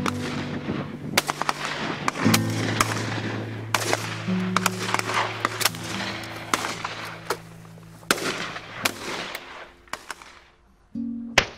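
Shotguns firing at driven red-legged partridges: many sharp shots in quick, irregular succession, some overlapping, with a short lull near the end. Guitar music plays underneath.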